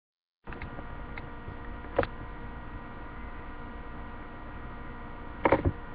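Steady electrical hum with a faint whine of several fixed tones, as picked up by a webcam microphone. It starts abruptly after a moment of dead silence, with a click about two seconds in and a few more clicks near the end.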